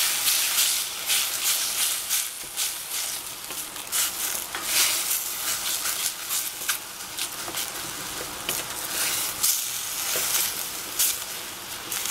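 Oyster mushrooms and greens sizzling as they fry in a stainless steel saucepan. A wooden spatula stirs and scrapes through them in many quick, irregular strokes.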